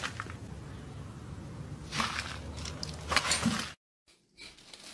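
Plastic shopping bag rustling in two short crinkly bursts as a cat moves with its head inside it, over low background noise, cut off by a brief dead silence near the end.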